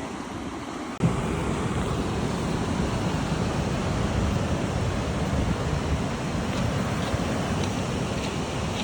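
Steady rushing noise of wind and ocean surf, with wind buffeting the microphone; it jumps louder about a second in and then holds.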